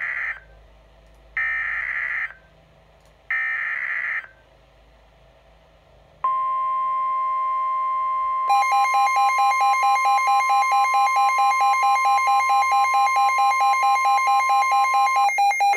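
An NOAA Weather Radio alert opening: three short screeching SAME (Specific Area Message Encoding) digital header bursts, then the steady 1050 Hz warning alarm tone. About two seconds into the tone, the weather radio's own alarm joins it as a rapidly pulsing electronic beep, which signals that a warning has been received.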